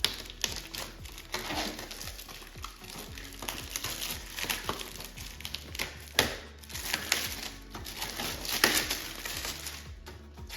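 Background music, with irregular scraping and crinkling handling noises over it.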